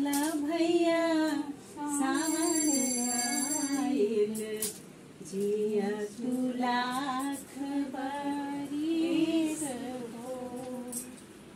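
A woman singing a Bhojpuri Raksha Bandhan folk song in long, wavering held notes, phrase by phrase, the singing fading out near the end.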